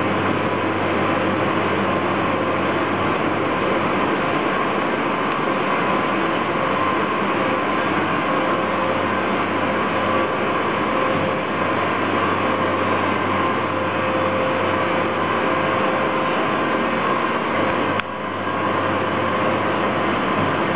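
Steady drone of running industrial machinery: a low hum with a steady whine above it, dipping briefly near the end.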